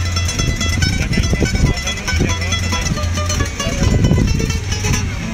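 Guitar played without singing: a run of quickly plucked and strummed notes over steady bass notes.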